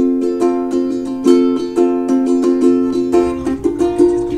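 Background music: strummed chords of plucked strings, struck at an even pace, with a change of chord about three seconds in.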